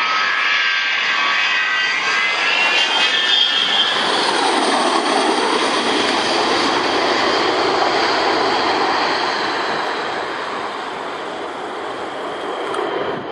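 Avro Vulcan XH558's four Olympus turbojets on final approach: a whine of several tones rising in pitch as the bomber closes in, giving way to a steady jet roar as it passes and lands. The roar fades over the last few seconds as it rolls away down the runway.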